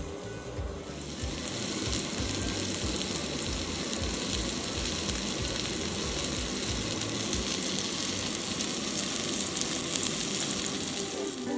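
Steak sizzling as it fries, a steady crackling hiss that swells up about a second in and keeps on evenly.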